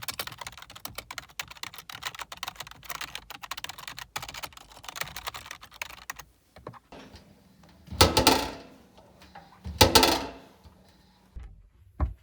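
Rapid, irregular clicking for about six seconds, then two loud, noisy rushing sounds about two seconds apart.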